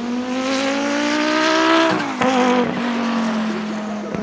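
Turbocharged five-cylinder engine of the 1988 Audi 200 Quattro Trans-Am accelerating hard, its note rising for about two seconds. It breaks off sharply at a gear change, then pulls on at a lower pitch. A steady hum runs underneath.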